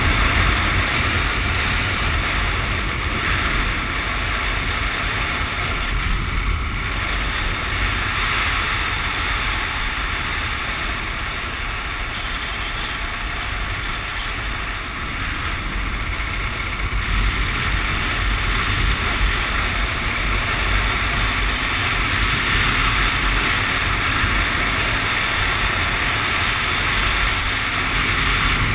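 Harley-Davidson Sportster V-twin engine running steadily at cruising speed on the road, with heavy wind rushing over the camera microphone.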